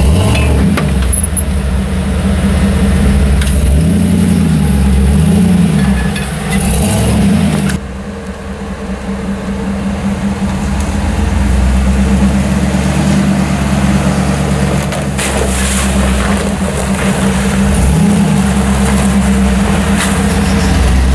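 Jeep Wrangler YJ rock crawler's engine revving up and down repeatedly under load while climbing over rocks. It drops suddenly about eight seconds in, then builds back up and revs again near the end.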